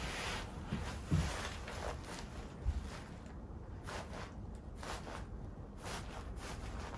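Rustling of clothing and the treatment table as a chiropractor handles and positions a patient, with a sharp thump about a second in and a softer one near three seconds.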